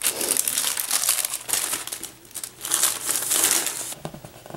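Clear plastic record sleeves crinkling and rustling as vinyl LPs are handled and slid out of them. The rustling comes in two stretches with a short lull between and dies down near the end.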